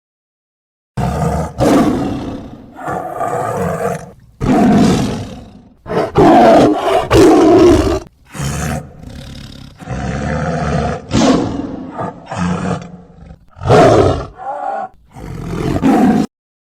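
Tiger roaring: a long run of loud roars with short gaps, starting about a second in and stopping shortly before the end.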